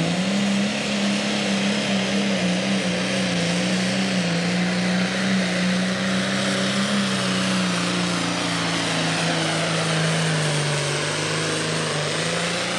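John Deere pro stock pulling tractor's turbocharged diesel at full throttle, dragging a weight-transfer sled: one loud, steady engine note. Its pitch slowly sags as the sled's load builds and bogs the engine down, then picks up briefly near the end.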